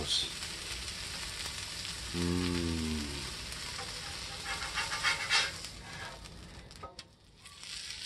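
A corn tortilla taco frying in oil on a steel flat-top griddle, sizzling steadily. About five seconds in, a metal spatula scrapes across the griddle as the taco is flipped. A short low hum sounds about two seconds in.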